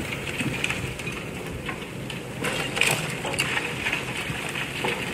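Demolition debris, brick and splintering wood, clattering and cracking in irregular bursts, loudest a little after halfway, over the steady low running of an excavator engine.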